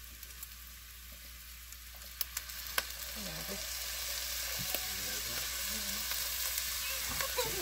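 Ground beef, onions and peppers sizzling on a hot flat-top griddle as Worcestershire sauce goes in. The sizzle grows louder from about two seconds in, with a few sharp clicks.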